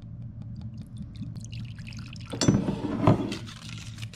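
Tequila poured from a glass bottle into a ceramic mug, with light splashing and dripping. Then two louder knocks a little past halfway.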